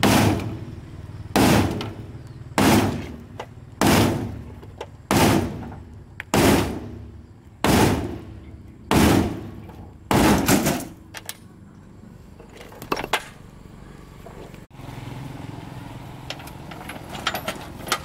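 A hammer pounding on the steel of a 1999 Daewoo mini truck's cargo bed: about nine heavy metallic blows roughly one and a quarter seconds apart, each ringing briefly. After them come a few light clinks of metal near the end.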